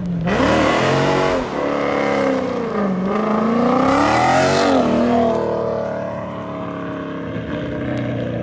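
2014 Dodge Challenger SRT8's 392 HEMI V8 revving hard while spinning donuts, its pitch swinging up and down, with two spells of tyre noise, near the start and around four seconds in. After about five seconds it drops to a lower, steadier note.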